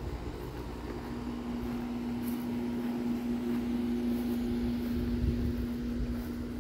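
Outdoor central air-conditioning condenser unit running: a steady electrical hum with fan noise, a little louder in the middle as the camera passes close to it. A soft bump about five seconds in.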